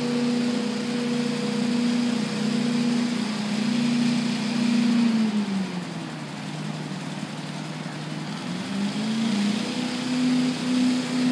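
Small engine of a walk-behind yard machine running steadily at high speed. About five seconds in its pitch sinks and it goes quieter for a few seconds, then it climbs back up to full speed.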